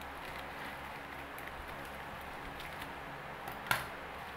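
Scissors cutting and plastic wrap crinkling as black plastic wrapping is cut and peeled off a shoebox, with faint crackles and one short, sharp tear about three-quarters of the way in, over a steady hiss.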